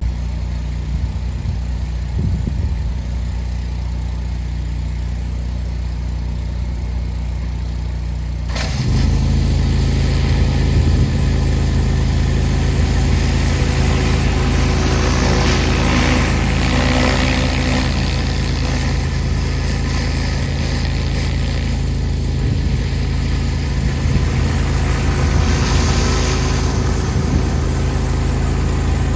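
Pressure washer's petrol engine running steadily; about eight seconds in the high-pressure spray opens up and a loud, steady hiss of water joins the engine for the rest of the time.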